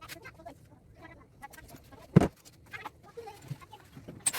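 Scattered light clicks and clinks of hand tools working on an air-conditioner condenser, with one sharp knock about two seconds in.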